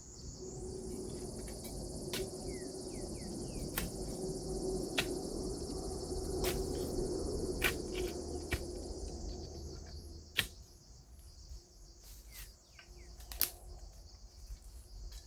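Insects buzzing in a steady high-pitched drone, louder for most of the first nine seconds and then thinner. Sharp knocks sound every second or so, and a few faint short bird chirps come about two to three seconds in.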